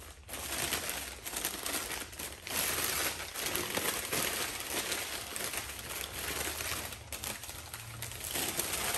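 Newspaper crumpling and crackling as it is pulled by hand off a wrapped camera, continuous with a few brief pauses.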